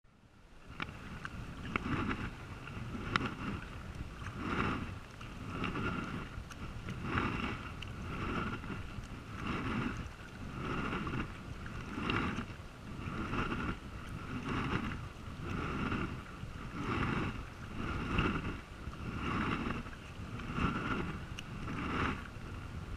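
Sea kayak paddle strokes alternating sides at a steady rhythm, about one every 1.3 seconds: each blade dips and pulls through the water with a splashing swish.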